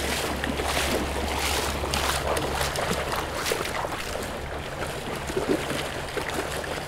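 Shallow river water splashing and sloshing around a chest-mounted GoPro as a dog wades, the camera dipping at the surface. A low steady rumble fades out about three seconds in.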